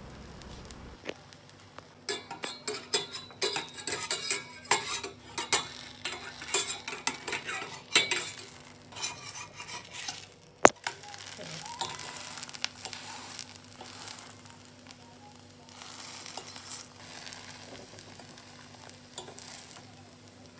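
Pancake sizzling in a stainless steel pot, with a slotted spatula scraping and tapping against the pot as the pancake is loosened, flipped and pressed. Many quick scrapes and clicks in the first half, one sharp knock about ten seconds in, then mostly a steady sizzle.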